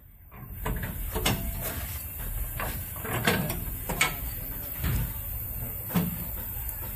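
Scattered metallic clinks and knocks of hand tools and steel lift-kit parts as a cross member is fitted and bolted under a truck, over a steady low hum.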